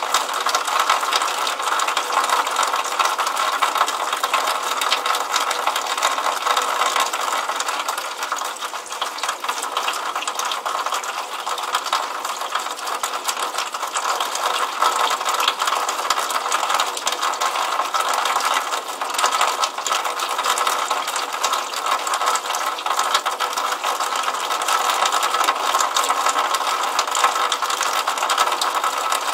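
Water trickling out of a downspout and splashing onto wet paving, heard as a steady, dense crackle of small splashes with no low rumble.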